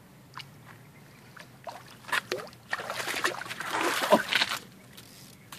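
Water splashing and churning as a hooked tarpon thrashes at the surface, with a few short splashes about two seconds in and a heavier spell of splashing from just under three seconds to about four and a half seconds.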